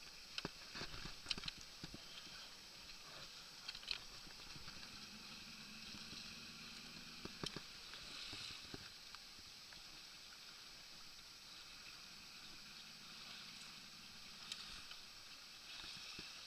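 Small waves lapping and splashing against a small boat's hull, with a few light knocks in the first few seconds and another near the middle. A faint low hum comes and goes twice.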